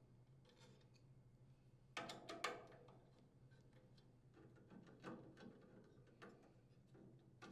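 Faint metallic clicks and scrapes of a 5/16-inch nut driver working the screws of a Briggs & Stratton air filter base as they are unthreaded, with a short cluster about two seconds in and a few scattered clicks later.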